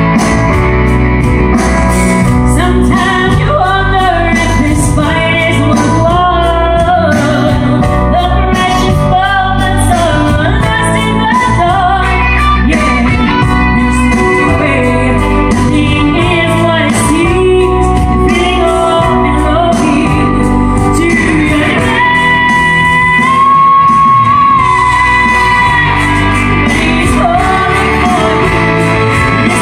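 A woman singing live over an amplified band backing with guitar, heard from the audience in a theatre. She holds one long note about three quarters of the way through.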